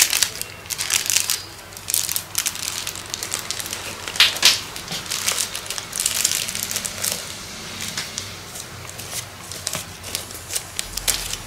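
Clear plastic wrapping crinkling and rustling as it is handled, in irregular bursts, loudest about four seconds in.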